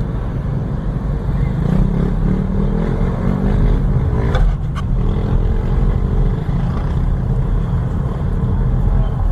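Car driving at low speed, its engine and tyre noise heard from inside the cabin, the engine note shifting as it speeds up and eases off. A couple of brief clicks come about four and a half seconds in.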